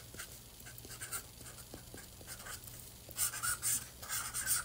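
Marker pen writing on a bento box lid: faint, short scratchy strokes, sparse at first and coming thicker in the last second and a half.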